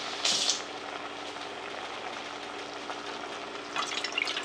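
Steady hiss of pots of water heating on an electric stove, with a faint low hum under it. A short sharp noise comes just after the start, and a few short handling noises near the end as something is worked over a pot.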